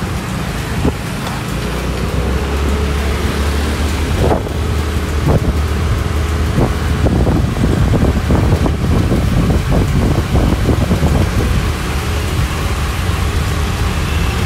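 Wind rushing over the microphone of a moving vehicle, over a steady low rumble of engine and road noise, with a run of irregular crackles and knocks through the middle.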